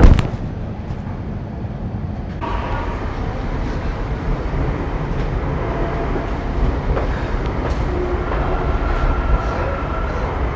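Metro train car running, heard from inside: a steady low rumble. About two seconds in the noise grows brighter and a faint steady whine joins it; a second whine shows up towards the end.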